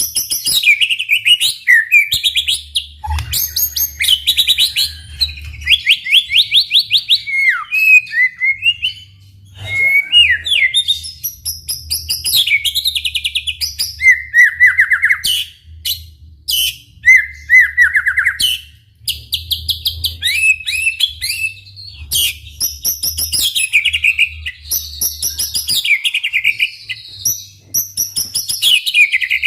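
White-rumped shama (murai batu) singing a long, varied song without letup: rapid trills, sweeping whistled notes and sharp chips in quick succession, with only brief pauses between phrases.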